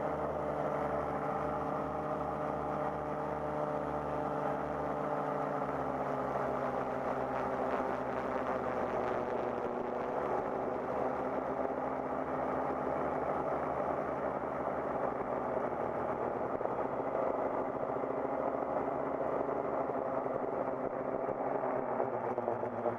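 FPV quadcopter's electric motors and propellers whining steadily as it flies, the pitch drifting slowly up and down with the throttle. It is heard through the quad's onboard GoPro.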